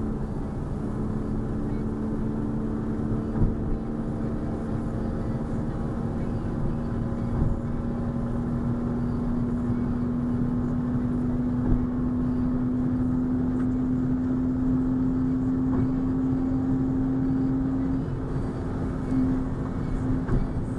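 Porsche Cayman cruising at expressway speed, heard inside the cabin: a steady engine drone over tyre and road noise. The engine note climbs slowly and then wavers near the end, with a few short knocks along the way.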